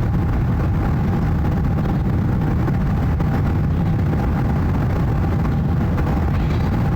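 Jet airliner flying overhead: a steady low rumble with faint steady engine tones above it.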